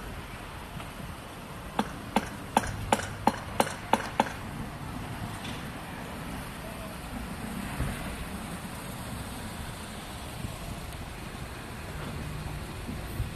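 Automatic boom barrier opening: a run of about eight sharp clicks, roughly three a second, a couple of seconds in, over the low running of a car engine as the car waits and then pulls through.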